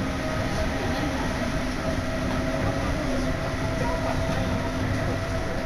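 Tama Toshi Monorail car heard from inside while it runs: a steady running noise with a constant low hum.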